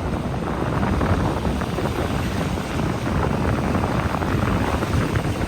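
Steady wind buffeting the microphone, mixed with the wash of ocean surf.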